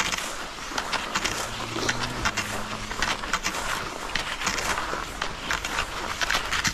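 Cross-country skis swishing and scraping over groomed snow in the set track, with pole tips crunching into the snow, in an uneven stride rhythm of a few strokes a second.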